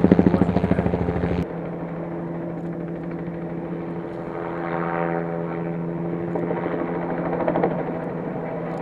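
Helicopter overhead, its rotor blades chopping loudly and rapidly at first. About a second and a half in the level drops suddenly to a steadier, quieter rotor and engine drone.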